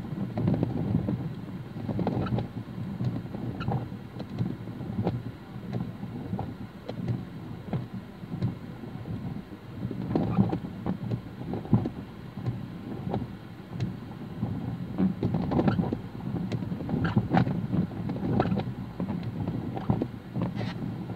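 Inside a car's cabin in rain: a low, uneven rumble with scattered small ticks of raindrops hitting the roof and windscreen.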